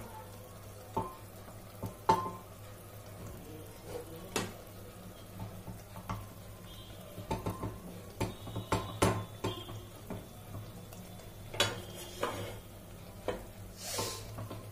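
A spoon clicking, tapping and scraping against a plate and the rim of an aluminium pressure cooker as a sticky coconut-jaggery filling is dropped onto dosa batter. The knocks are irregular, with a longer scrape near the end, over a faint steady low hum.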